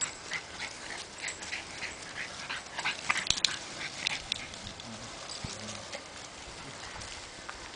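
Small dogs playing on dry fallen leaves: a quick run of short rustles and breaths, about three a second, that fades out after about four seconds.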